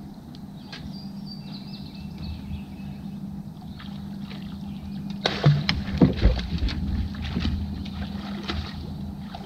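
A crawfish trap line being hauled up hand over hand from the lake over the side of a boat: water splashing and dripping off the rope, with a cluster of sharper knocks and splashes about halfway through, over a steady low hum.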